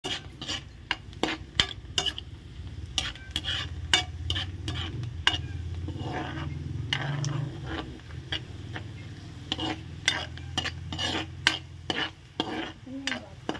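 Chopped garlic sizzling in bubbling butter in a wok, while a metal spatula stirs it, scraping and clicking against the pan again and again. A low steady hum runs underneath.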